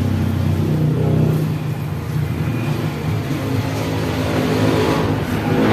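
A low, steady motor drone with a slowly shifting pitch. Under it, a metal spatula scrapes through thick sticky rice in an aluminium wok as it is stirred.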